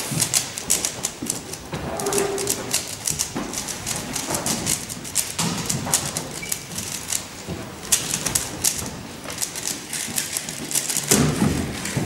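A plastic speed cube being turned rapidly by hand, clattering in quick runs of clicks with short pauses between them. A louder low rumble rises near the end.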